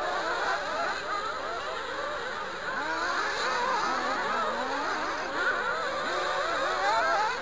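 Several nitro RC buggies' small two-stroke glow engines running at once, each buzzing and constantly rising and falling in pitch as it revs and backs off, overlapping into a whining chorus.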